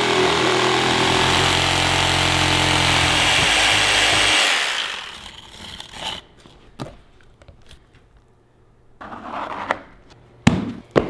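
An electric jigsaw cutting through a plywood panel, running steadily for about four and a half seconds before winding down. After it come quieter scraping sounds of a utility knife slicing carpet and adhesive being spread on the board, with a couple of sharp knocks near the end.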